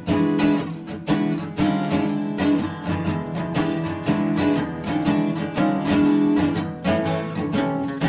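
Background music led by acoustic guitar, a quick, steady run of plucked and strummed notes.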